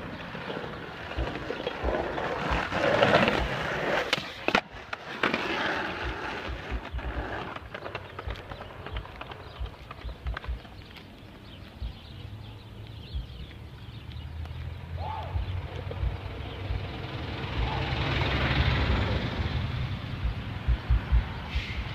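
Skateboard wheels rolling over concrete sidewalk and asphalt, a continuous gritty rumble. A few sharp clicks and knocks from the board come through, most about four to five seconds in.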